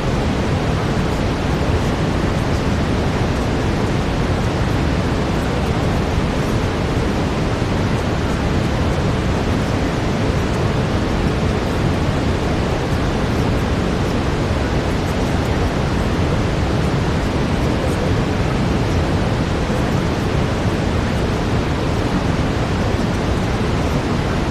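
Steady synthetic brown noise, a deep, even hiss without change, with a faint steady tone underneath.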